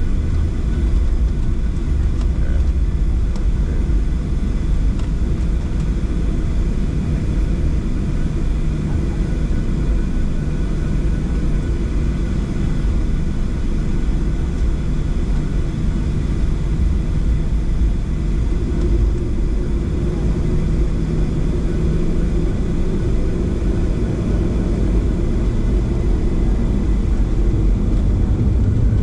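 Boeing 737-700 jet engines (CFM56-7B) at takeoff power, heard from inside the cabin: a loud, steady, deep rumble with faint high engine tones over it.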